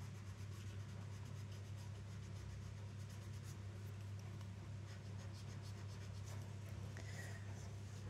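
Graphite pencil scratching on paper in many short, quick sketching strokes, over a steady low hum.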